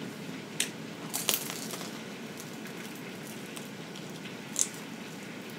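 Crunching bites and chewing of a crisp fried pork egg roll close to the microphone: a few sharp crunches, the loudest about a second in and another near the end, over a low steady hiss.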